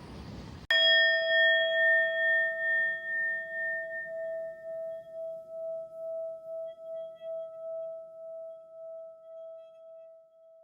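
Train rumble cuts off abruptly under a second in. A single struck bell-like tone, such as a singing bowl, then rings out with a slow wavering pulse and fades away over about ten seconds.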